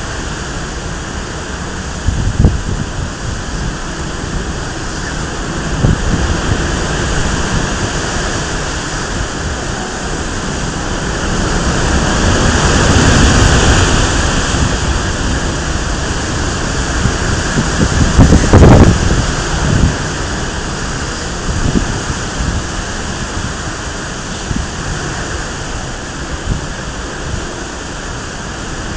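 Typhoon wind and heavy rain in a steady rush, swelling in a strong gust about halfway through. Wind buffets the phone's microphone in low thuds a few times, hardest about two-thirds in.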